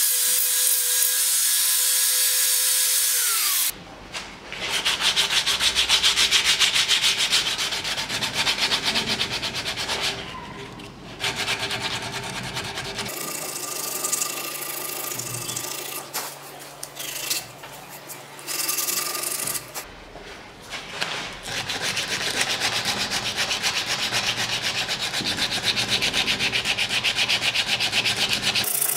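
An angle grinder with a sanding pad runs on the wooden spoon and winds down a few seconds in. Then sandpaper is rubbed rapidly back and forth by hand over the spoon's wooden bowl, with a few short pauses.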